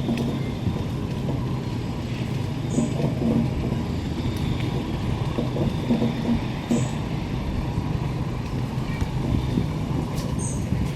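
Wheelchair rolling along a pavement: a steady rumble with a low hum and small rattles.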